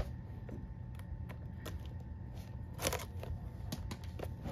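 Hands handling a shrink-wrapped cardboard box of baseball cards: scattered light taps and clicks, with a short crinkly rustle about three seconds in, over a low steady hum.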